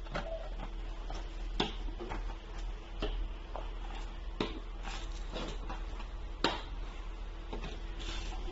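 Plastic 90-degree corner clamps knocking and clacking as they are lifted out of a cardboard box and set down on a wooden tabletop: scattered sharp knocks every second or so, the loudest about one and a half and six and a half seconds in, over a low steady hum.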